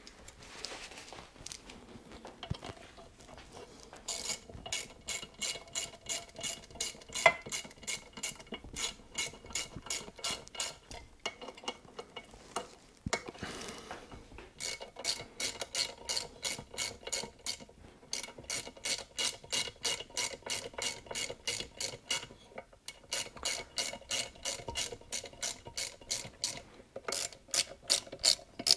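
Hand ratchet clicking in runs of about four clicks a second, with short pauses between the runs, as the connecting rod cap bolts are run down by hand. One click about seven seconds in is louder than the rest.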